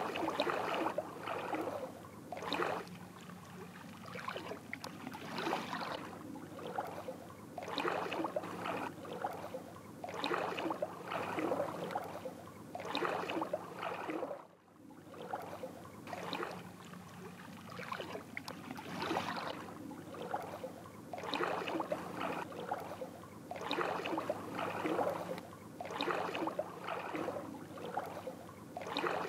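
Water lapping in repeated washes, one every two seconds or so, with a brief drop-out about halfway through.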